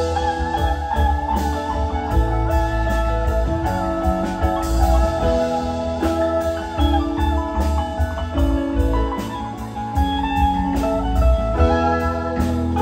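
Live band playing an instrumental passage: electric guitars, pedal steel guitar, keyboard and drum kit, with a steady beat.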